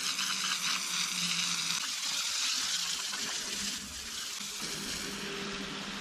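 Garden hose spraying a jet of water onto a muddy log's bark and the wet ground, a steady hiss, washing the mud off the log.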